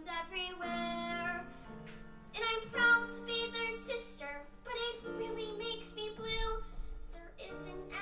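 A young girl singing a musical-theatre song in phrases into a microphone, over instrumental accompaniment.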